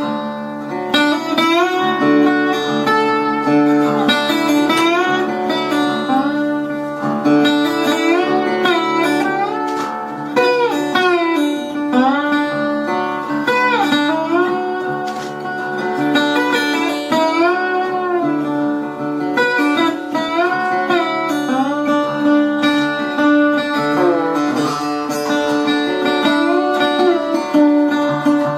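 Guitar music: notes sliding up and down over steady, held low notes.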